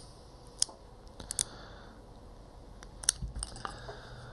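A handful of short, sharp metallic clicks and taps from Smith & Wesson revolver parts being handled during reassembly, spaced irregularly about a second apart.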